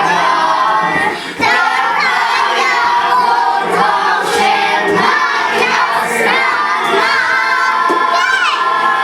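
A group of children singing together over a backing track.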